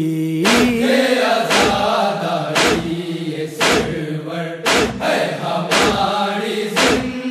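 Men's chorus chanting an Urdu noha, held long notes, over a heavy beat of hands striking chests (matam) landing about once a second.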